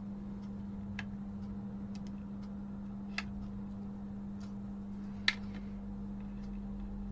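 Light, scattered clicks and taps of small parts and tools being handled on an opened-up TV remote control, two of them sharper, about three and five seconds in, over a steady low hum.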